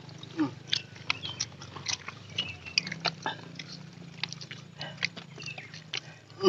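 Eating sounds from chewing and crunching on grilled chicken, heard as scattered small clicks and crackles, with a few short high chirps.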